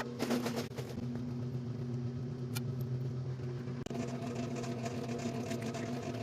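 Antique electric wringer washing machine running: a steady motor hum with some clatter in the first second. A second, higher steady tone joins about four seconds in.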